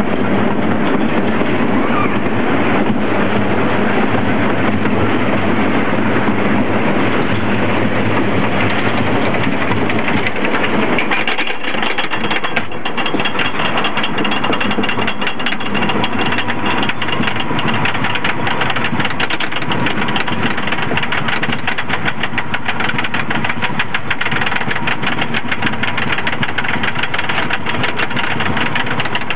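Wooden roller coaster train rolling and rumbling over wooden track, then engaging the chain lift about eleven seconds in and climbing the lift hill to a fast, steady clacking of the lift chain and anti-rollback dogs.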